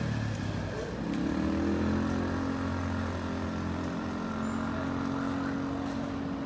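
A motor vehicle's engine running; its pitch rises about a second in, as if accelerating, then holds steady.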